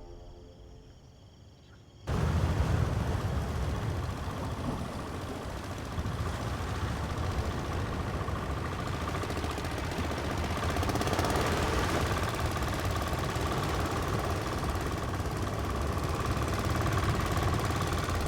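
Boat engine running steadily at sea, cutting in suddenly about two seconds in with a low, constant drone.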